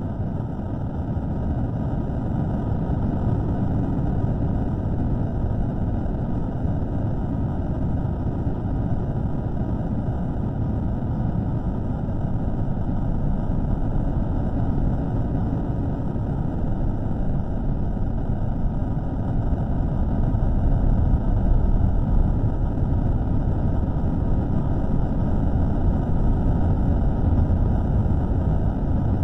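A steady low rumbling drone of noise with no clear tone or rhythm, growing a little louder about two-thirds of the way through. It is a microphone recording of an unexplained noise, slowed down.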